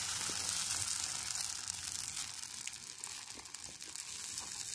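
Rice batter sizzling on a hot griddle as it is spread into a round by hand, with faint crackles; the hiss slowly dies down.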